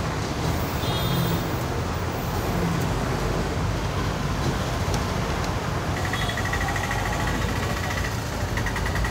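Kerala State RTC bus underway on the highway: steady engine and road noise. A high buzzing tone joins about six seconds in, dips briefly near eight seconds and resumes.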